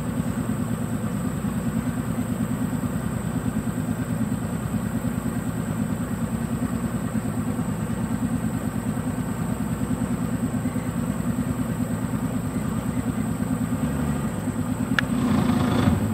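A boat's motor idling steadily with a fast even throb. About two seconds before the end its note shifts and it briefly gets louder, with a single click.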